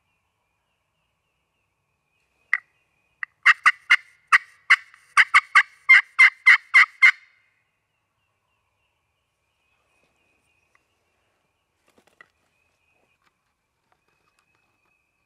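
Hand-held turkey call sounding a loud series of about a dozen short, sharp hen-style yelps, roughly three a second, starting a couple of seconds in and lasting about four seconds; the calling imitates a hen to draw in a gobbler.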